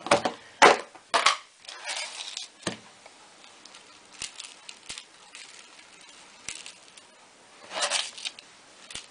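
A plastic tub of coarse salt is knocked and set down on a stone countertop in a few short clatters and rustles. Near the end a hand digs into the coarse salt with a brief crunching.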